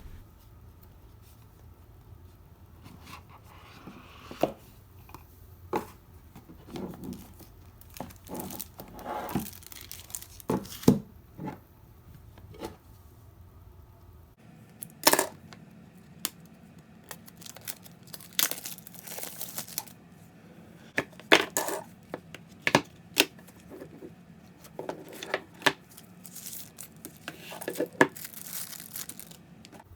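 Smartphone boxes being unboxed by hand: scattered taps, clicks and rustling of cardboard and plastic packaging being opened and handled.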